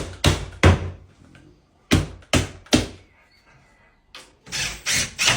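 Sharp knocks on an old wooden kitchen cabinet carcass, struck in short runs of two or three, as the unit is knocked back into square.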